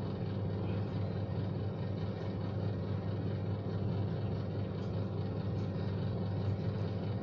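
Steady low hum with an even background hiss and no distinct handling sounds.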